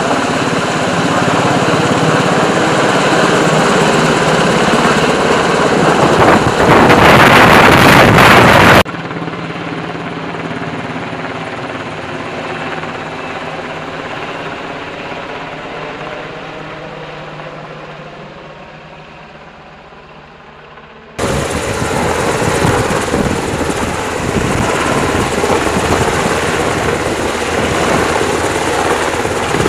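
UH-60L Black Hawk helicopter's rotor and twin turboshaft engines running loud as it flies overhead; the sound swells about six seconds in, then drops abruptly about nine seconds in and fades away. About 21 seconds in it returns suddenly loud as the helicopter hovers low over the pond, its rotor downwash churning spray off the water.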